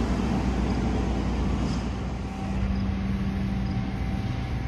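Steady low background rumble, with a steady hum that comes in about two seconds in and stops near the end.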